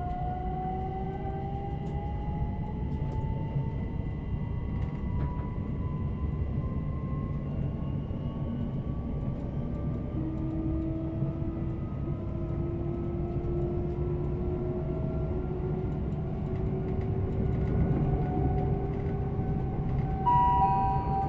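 Interior of a Class 387 electric multiple unit accelerating: a steady low rumble of wheels on rail under a whine from the traction motors that slowly rises in pitch as the train gathers speed. A steady electronic chime tone sounds near the end.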